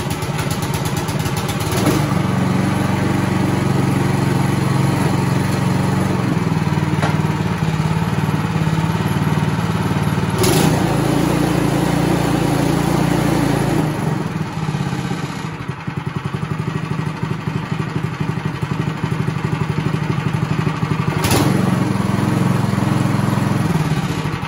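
Troy-Bilt snow thrower's 179cc single-cylinder overhead-valve engine running steadily and loud after starting on a freshly rebuilt carburetor, with the choke set at half. Its tone changes slightly for a few seconds in the second half, and there are two brief clacks.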